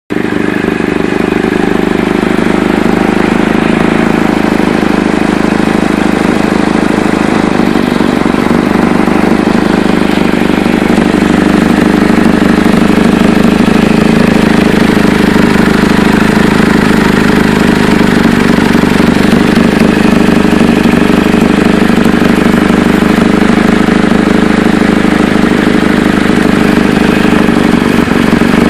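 2008 Chevy Cobalt's 2.2-litre four-cylinder engine running with a loud, steady exhaust leak. The leak is at the flex pipe, the exhaust manifold gasket or both; the owner can't yet tell which.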